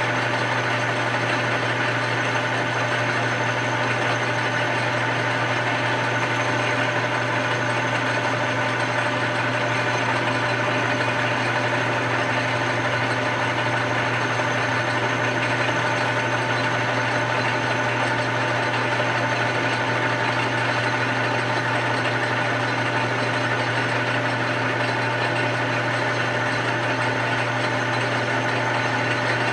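Grizzly metal lathe running steadily, a constant hum with several steady whining tones from its motor and gearing.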